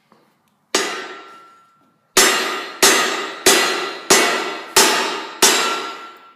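Red-hot steel pipe rammed end-down onto a steel plate to upset it, seven metallic clangs each with a ringing tail: one strike about a second in, then six in quick succession about two-thirds of a second apart. The upsetting swells the heated section into a bamboo-style node.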